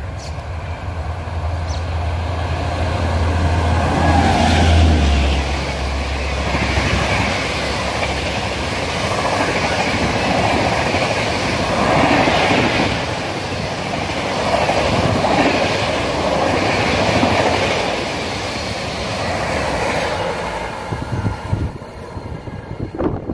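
Electric-hauled express train with LHB coaches running through a station at high speed. A deep low hum comes in first as the locomotive approaches and passes. Then comes a loud, steady rush with wheel clatter, swelling about every two and a half seconds as the coaches go by, and it fades out near the end.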